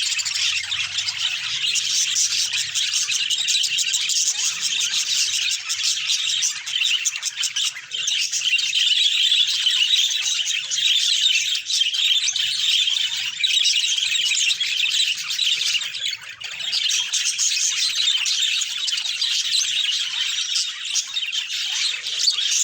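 Budgies chirping and chattering continuously, a dense high-pitched warble with a brief lull about two-thirds of the way through.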